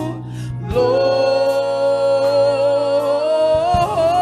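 Gospel worship singing: a voice takes a quick breath, then holds one long note with vibrato that steps up in pitch near the end, over a steady low sustained tone.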